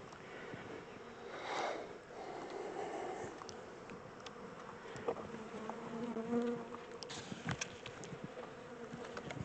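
Honey bees buzzing in a steady, wavering hum from a swarm being moved into a hive, with a few light clicks.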